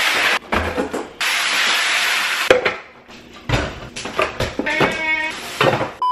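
Two long bursts of hissing, then knocks and clinks of canned food and pots being handled. A steady beep tone starts at the very end.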